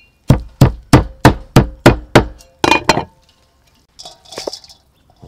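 Knife chopping through a bundle of softened glass noodles on a thick wooden chopping board: about seven even strokes at roughly three a second, then a few quicker ones. A lighter clatter follows about four seconds in.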